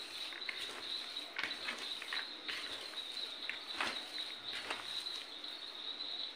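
A hand mixing and kneading chopped chayote-shoot and onion momo filling in a plastic bowl, giving short irregular rustles. A steady high insect chirring, like crickets, runs behind it.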